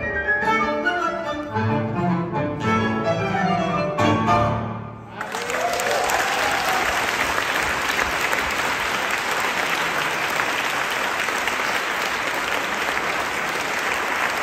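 A live tango ensemble (strings and piano) plays the closing bars of a milonga, ending on a final accent about four seconds in. Right after, the audience breaks into steady applause that carries on to the end.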